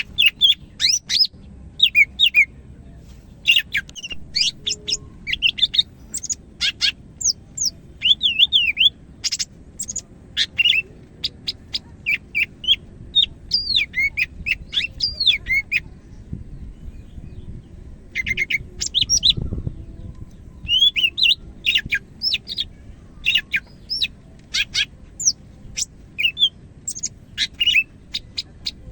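Cucak hijau (green leafbird) in full, continuous song: a fast, varied run of whistles, chirps and trills, with a short pause a little past halfway.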